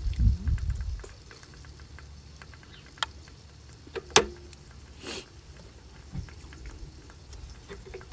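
Strong wind buffeting the microphone as a low rumble for about the first second, then scattered small clicks and taps, the sharpest one about four seconds in, and a brief hiss a second later.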